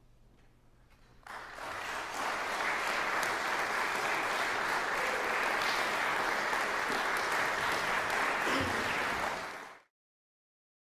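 Audience applause in a concert hall. It starts about a second in after a short hush and cuts off abruptly near the end.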